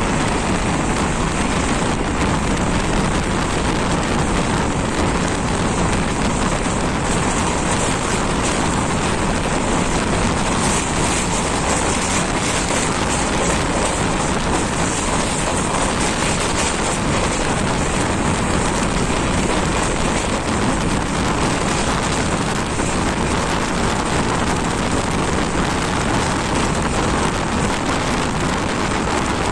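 Passenger train running at speed, heard from an open coach door: a steady, loud rush of wheels on rails and passing air, with wind buffeting the microphone.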